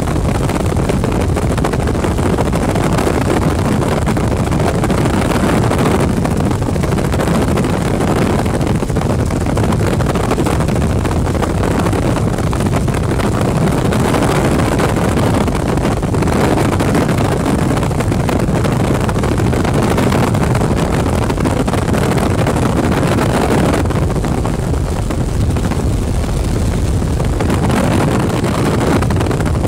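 Helicopter in flight heard from inside the cabin: a loud, steady drone of rotor and engine noise.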